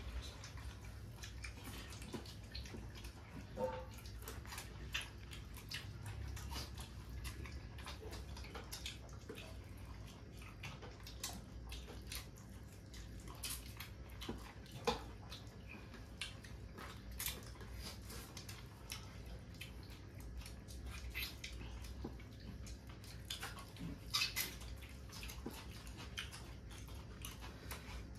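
Faint eating sounds: irregular small clicks and smacks of chewing and of hands working rice and curry on steel plates, over a low steady hum.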